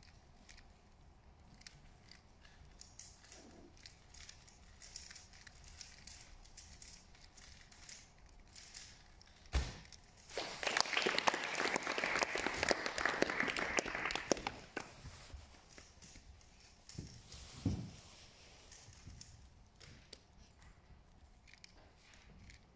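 A single sharp knock, then audience applause for about four seconds, with scattered faint clicks and knocks around it.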